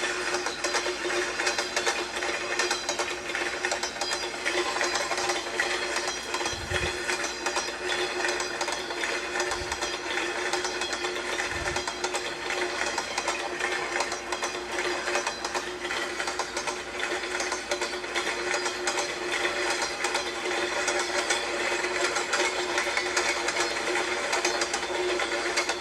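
Train wheels running over rail joints: a continuous, fast clickety-clack rattle over a steady hum.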